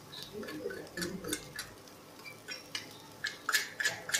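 Metal spoon tapping and scraping against a small stainless-steel bowl as spice powder is knocked out of it into a kadai: a run of light clinks and clicks, quicker and sharper near the end.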